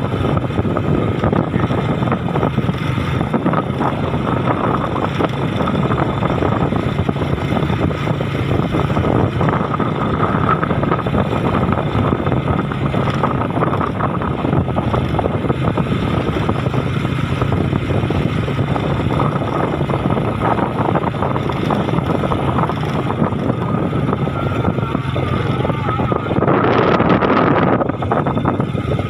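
Vehicle engine running steadily while on the move, with road and wind noise on the microphone. A louder surge comes about two-thirds of the way through the last few seconds.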